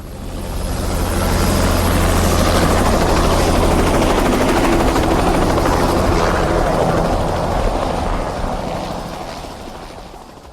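Helicopter rotor chopping with the engine running, building up over the first second or so, holding loud, then fading away over the last few seconds.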